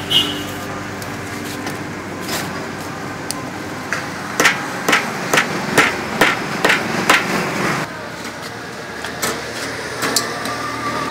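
Steady street traffic background with a run of about ten sharp knocks, roughly three a second, in the middle, like hammering or chopping on a hard surface.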